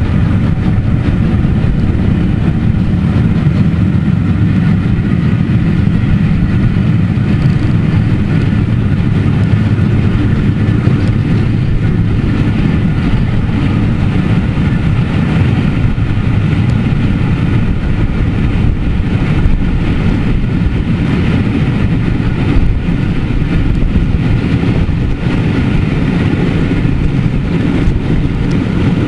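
Steam-hauled passenger train running at speed, heard from an open carriage window: a steady rush of wind and wheels on the rails.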